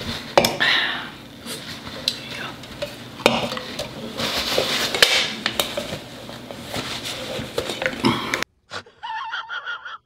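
Close-up mukbang eating and table noises: chewing and mouth sounds, clicks and knocks of cutlery and dishes, and a paper napkin rubbing. Near the end the sound cuts out suddenly, with a brief soft voice after it.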